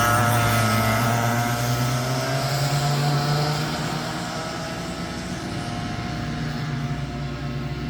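Go-kart engine running, its note rising slightly and then fading after about four seconds.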